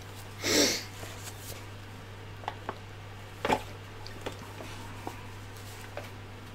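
A paper instruction booklet swished and moved aside, then a few light clicks and taps of handling parts on a workbench, the loudest about three and a half seconds in, over a steady low hum.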